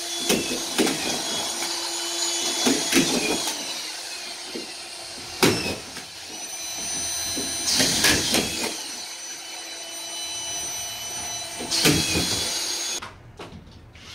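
Cordless vacuum cleaner running steadily with a few knocks against the work, cutting off suddenly near the end.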